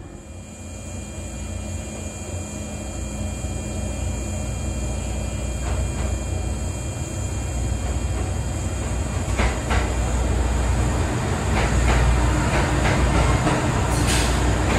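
A train running on rails, its sound growing steadily louder, with a few sharp clicks.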